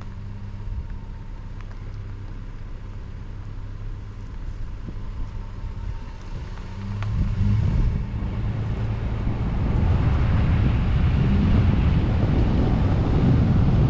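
Car engine running at a steady low hum, then about halfway through it picks up and road and wind noise build as the car drives on.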